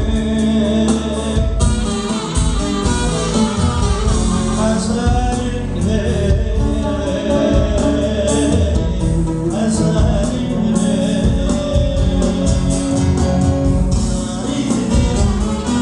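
Live Turkish folk dance music for halay: singing over a band of instruments with a steady, driving drum beat.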